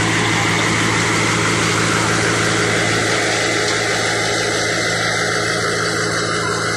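Concrete mixer pump's engine running steadily, a constant low hum under a broad mechanical noise.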